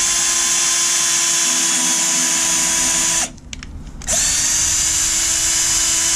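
Small cordless drill spinning a thin wire brush inside a threaded bolt hole in the cast-iron block of a Jeep 4.0 inline-six, cleaning the threads. The motor runs at a steady whine, stops about three seconds in, then starts again nearly a second later and spins back up to speed.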